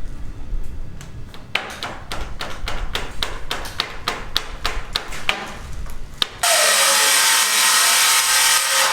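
Rapid hammer strikes, about four a second, then a power tool starts up suddenly about six seconds in and runs steadily to the end.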